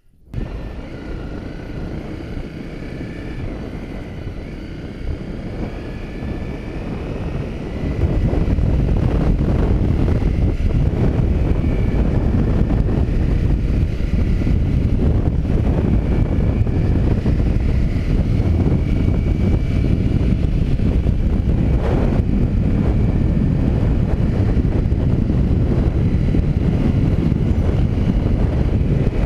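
Honda CRF250 Rally's single-cylinder engine running as the motorcycle rides a dirt track, under heavy wind rumble on the microphone. The rumble jumps much louder about eight seconds in.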